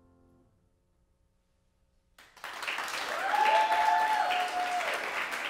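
The last piano chord dies away into a moment of silence, then audience applause breaks out suddenly about two seconds in, with a few voices cheering over the clapping.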